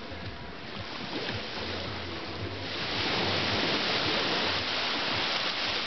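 Small waves washing onto a sandy beach, a steady hiss that swells louder about three seconds in.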